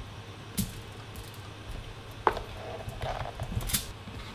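Boiled potatoes being pressed flat with the bottom of a container on aluminium foil: three sharp taps, with quiet handling noise between them.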